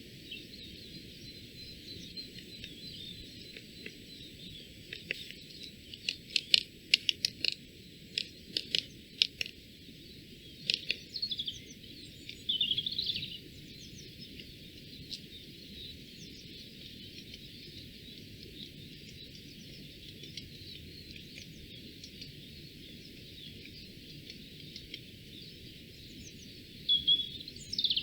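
Woodland ambience with small birds calling: a run of short, sharp ticking notes about five to eleven seconds in, a brief warbled phrase soon after, and more chirps near the end, over a steady hiss.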